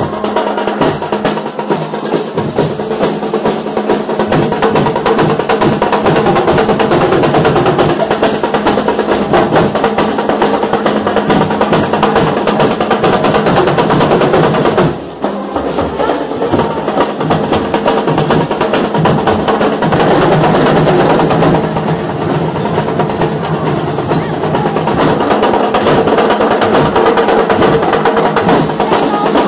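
Marching percussion band of snare drums and larger carried drums playing a dense, steady rhythm, with a brief break about halfway through before the drumming picks up again.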